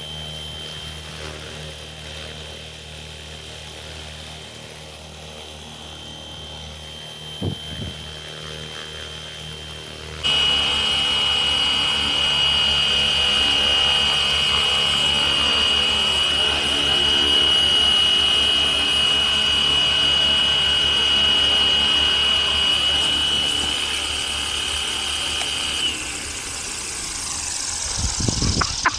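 Small electric RC helicopter, a FlyWing FW450 V3, running with a steady high whine from its motor and rotor. About a third of the way in, the sound cuts to much louder and closer, and near the end the whine falls away as the rotor spools down after landing.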